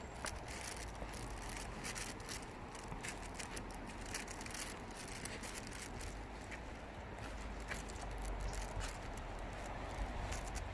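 Outdoor ambience: a steady faint hiss with many small scattered clicks and a low rumble.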